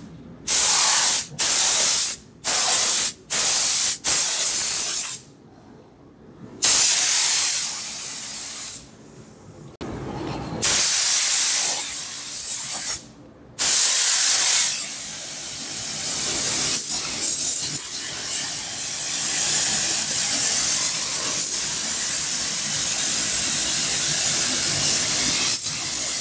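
Compressed-air hiss of a gravity-feed paint spray gun spraying paint: several short trigger pulls with gaps between them, then one long continuous pass through the second half.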